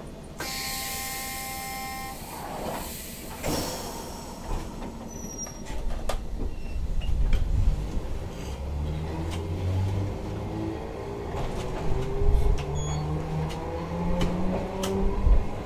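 Toyohashi Railway 3200-series tram: a short hiss with a brief tone about half a second in, then the tram pulling away, its motor hum rising steadily in pitch as it gathers speed, with knocks and clatter from the wheels on the rails.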